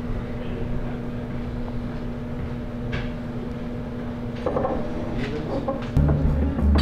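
Bar room tone: a steady low hum with a few faint knocks and clinks. About six seconds in, music with a heavy bass comes in.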